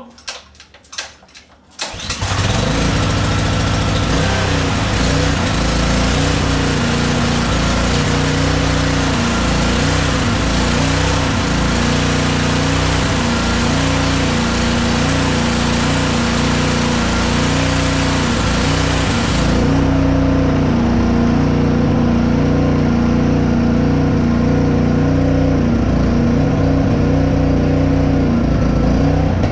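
Honda GCV190 single-cylinder four-stroke engine on a pressure washer being pull-started on choke; it catches about two seconds in after a few short rattles from the recoil pull, then runs steadily at speed with no load on the pump. It is the first test start after the carburetor was cleaned.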